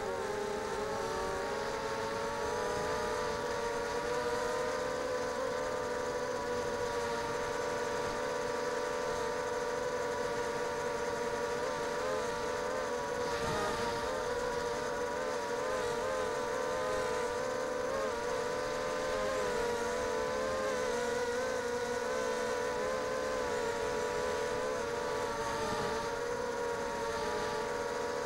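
Whine of a ZMR250 quadcopter's four RCTimer 2300kv brushless motors spinning 5030 carbon propellers in flight. Several tones sound together, their pitch wavering up and down with the throttle.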